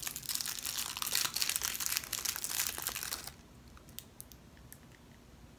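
A plastic candy wrapper crinkling as a wrapped candy is unwrapped by hand, for about three seconds, then stopping; a few faint clicks follow.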